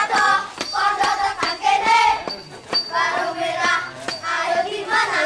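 A group of young children chanting and singing a scout cheer in unison, in short rhythmic phrases, with a few sharp clicks mixed in.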